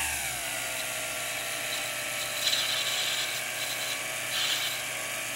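Jeweler's lathe motor running with a steady whine that dips slightly in pitch in the first half second, while a hand graver cuts the spinning brass rod. A scraping hiss from the cut comes and goes a few times.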